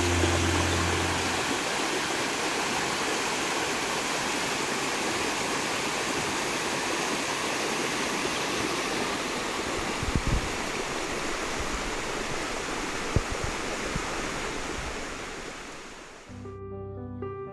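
A fast, shallow stream rushing over rock ledges: a steady hiss of white water. Soft music fades out just after the start and comes back in near the end.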